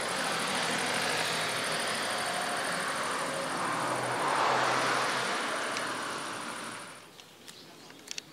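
A vehicle passing by, its rushing noise swelling to a peak about four seconds in and fading out about seven seconds in. A few faint clicks follow near the end.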